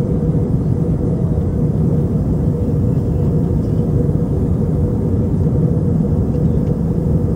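Airliner cabin noise in flight: the engines and the airflow make a steady low rumble, with a faint even hum above it.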